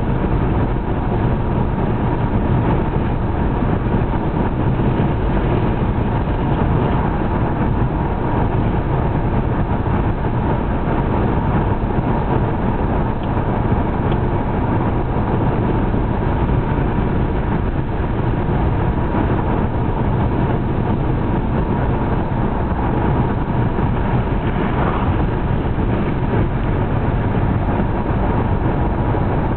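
Steady road noise heard inside a moving car's cabin: tyres on the pavement and the engine running at cruising speed.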